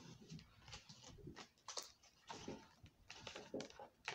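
A deck of tarot cards being handled and shuffled: faint, irregular clicks, snaps and rustles of the cards, several a second.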